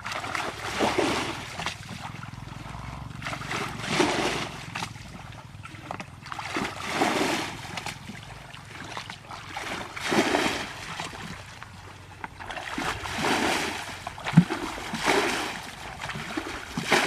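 Water splashing and sloshing in repeated swells about every three seconds, as from paddling or wading through shallow water during net fishing. One short knock comes in about two-thirds of the way through.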